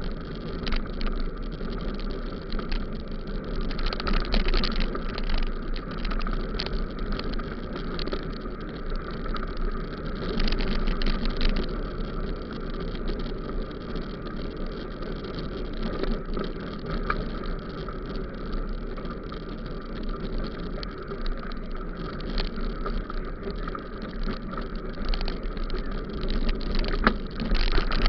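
Bicycle riding over a rough dirt and gravel track, heard from a camera on the bike: a steady rumble of tyres and wind, broken by frequent short rattles and knocks as the bike jolts over the surface.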